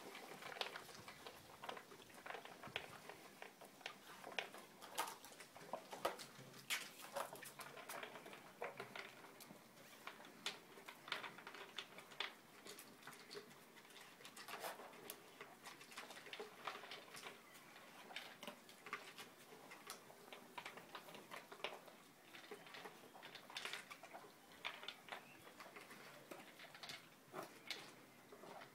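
Dogs eating from plastic slow-feeder and puzzle bowls: faint, irregular clicks and rattles of food and muzzles against the bowls.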